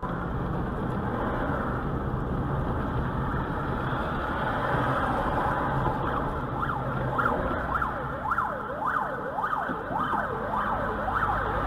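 Steady engine and road noise of a car. From about six seconds in, an approaching fire engine's siren joins it, wailing quickly up and down about twice a second.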